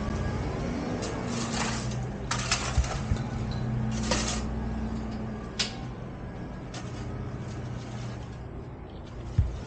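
Diesel engine of a construction machine running steadily at low revs, with several short scraping noises over it and a single thump near the end.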